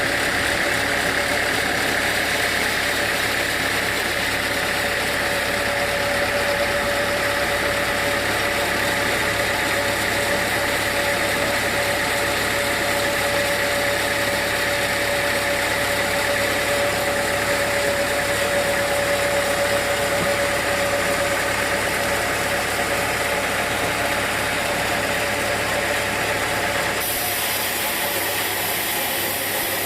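Sawmill machinery running steadily, a continuous engine-like drone with a steady whine. Near the end the low rumble drops away and a higher hiss comes in.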